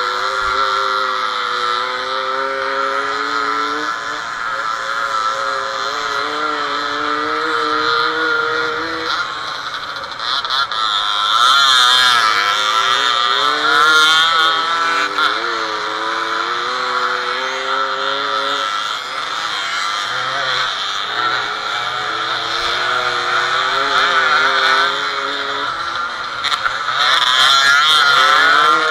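Small two-stroke motorcycle engine, heard from the rider's seat, revving up and dropping back over and over as the bike is ridden round an off-road course, with other bikes' engines close by.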